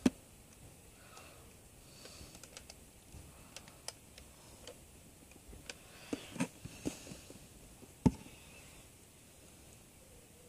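Handling noise as a box is moved about: scattered light clicks and taps, with a cluster about six seconds in and sharp knocks at the very start and about eight seconds in.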